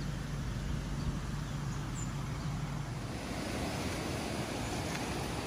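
Steady outdoor background noise: an even rush with a low hum through the first three seconds or so.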